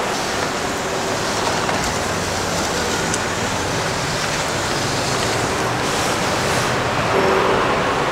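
Steady background din of a busy open-air market, with a continuous low hum like a vehicle engine running.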